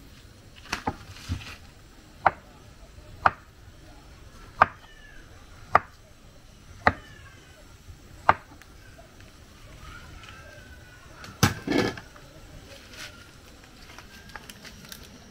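Knife chopping plantain on a wooden chopping board: sharp single chops about once a second, then a louder double knock a little before the end.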